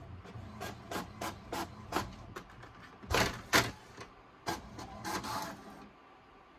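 HP all-in-one inkjet printer printing a status report page: a run of short mechanical strokes from the paper feed and print carriage, about three a second at first, with two louder strokes about three seconds in, stopping about six seconds in.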